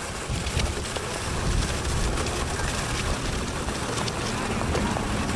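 Wind buffeting the microphone: a steady, fluttering low rumble under an even hiss.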